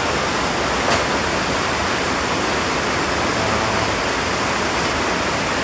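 Heavy rain shower falling steadily, an even loud hiss, with one sharp tap about a second in.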